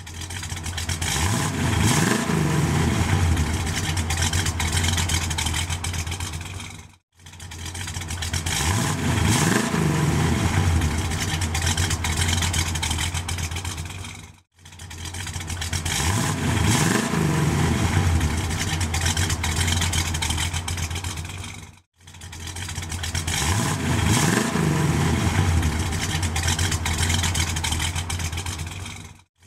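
Car engine idling with a blip of the throttle about two seconds into each pass, the revs rising and falling back. The same seven-second recording plays four times over, each time fading in and fading out.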